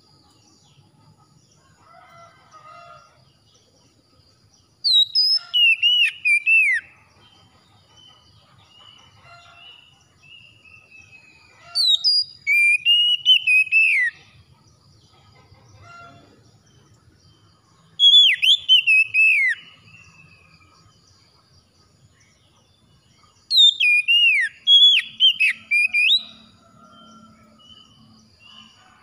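Oriental magpie-robin singing: four loud phrases of whistled notes that glide up and down, each lasting two to three seconds, with quiet gaps between that hold only faint, softer calls.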